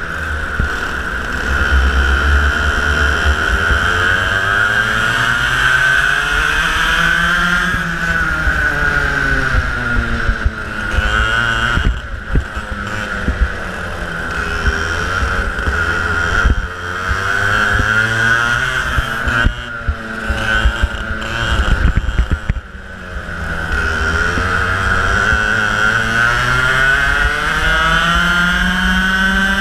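Racing kart engine heard from the kart itself, revving up along the straights and dropping in pitch as the driver lifts for corners, three climbs and two drops in turn. A spell of rough, choppy noise comes over it about two-thirds of the way through.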